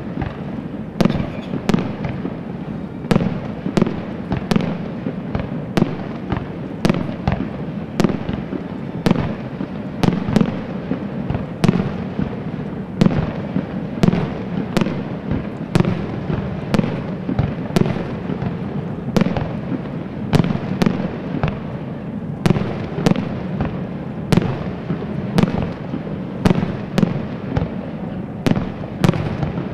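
Fireworks display: sharp bangs of shells bursting, more than one a second, over a continuous dense crackle and rumble.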